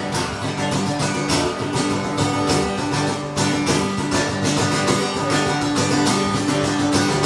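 Acoustic guitar strummed in a steady rhythm: an instrumental passage of live music with no singing.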